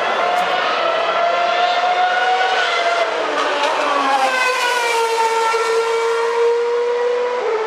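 2012 Formula One cars' 2.4-litre V8 engines running at high revs, several notes overlapping. The pitches climb a little, drop away over the middle seconds, then one steady high note holds to the end.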